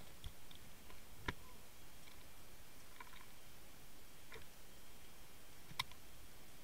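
Underwater ambience: a steady faint hiss with a handful of scattered sharp clicks. The two loudest come about a second in and near six seconds in.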